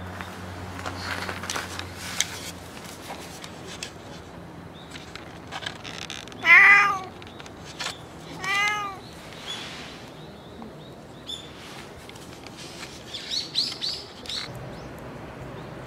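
Cat meowing twice, about two seconds apart, the first call the louder. Each meow rises and then falls in pitch.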